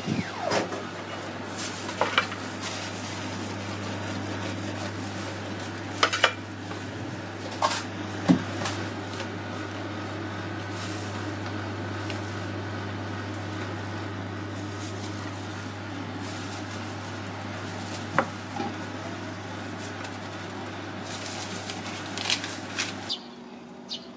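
Kitchen clatter: metal utensils clinking and knocking against pans and containers, scattered sharp knocks over a steady low hum that stops shortly before the end.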